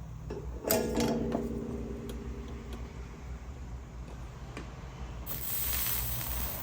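A sharp metallic clink about a second in, with a ringing tone that dies away over about two seconds. Near the end a steady hiss starts: flux and solder sizzling under the soldering iron as the solder takes on a metal embellishment.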